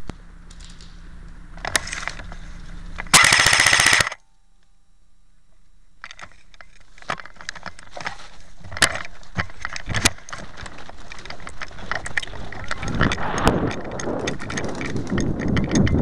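Airsoft gun firing one rapid full-auto burst of about a second, a fast even string of sharp cracks, about three seconds in. Afterwards scattered clicks and rustling of handling and movement build toward the end.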